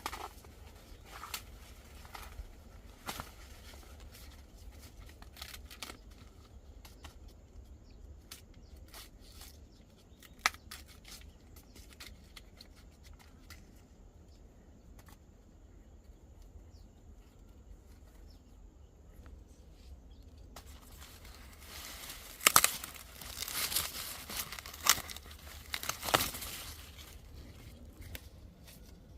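Dry corn husks and leaves rustling and tearing, with scattered snaps through most of the stretch and a louder run of tearing and rustling near the end.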